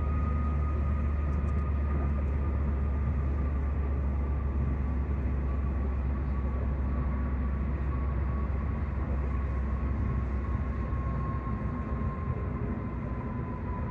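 Car interior road noise at highway speed: a steady low rumble from tyres and engine, with a thin whine that slowly falls in pitch.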